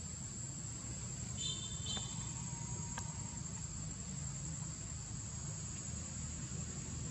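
Insects droning outdoors: one steady, high-pitched tone held throughout, over a low background rumble, with a couple of brief high chirps about a second and a half in.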